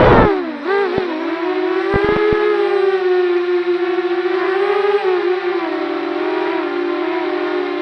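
Continuous whine with many overtones, wavering slowly up and down in pitch, with a few short thumps in the first two seconds: the unwanted sound on a Runcam 2 action camera's audio track.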